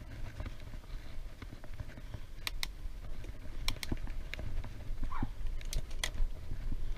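Wind buffeting the microphone of a moving bicycle as a low steady rumble, with a few sharp clicks in quick pairs about two and a half, three and a half, and six seconds in.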